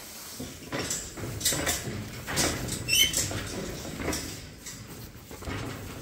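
Sheep milling in a straw-bedded pen: hooves shuffling and pattering in the bedding, with scattered light knocks. A short high squeak sounds about three seconds in.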